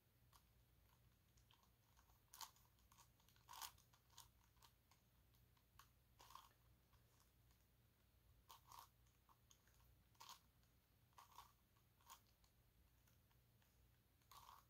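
Plastic layers of a gigaminx, a 5x5 dodecahedron twisty puzzle, clicking as they are turned by hand: faint, irregular clicks and snaps, a dozen or so spread through.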